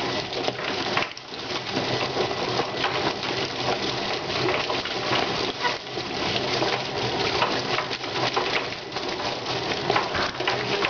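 Rotary drum chicken plucker running: wet chicken carcasses tumbling and slapping against the spinning rubber plucking fingers, with water spraying into the drum, a dense wet rattle over a low steady motor hum.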